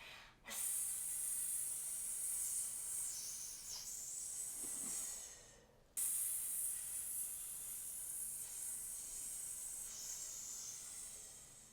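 A woman hissing like a snake, a long "sss" breathed out through the teeth, twice: each hiss lasts about five seconds and fades toward its end, and the second starts abruptly about six seconds in.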